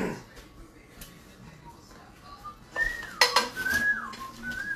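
A spoon clinks against serving bowls as food is spooned in, with sharp clinks about three seconds in. Alongside, a few short whistled notes, each held and then sliding down in pitch, repeat roughly once a second.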